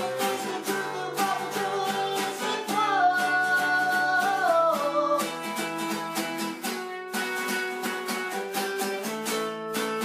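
Acoustic guitar strummed in a steady rhythm, with a man singing long, gliding notes over it for about the first five seconds.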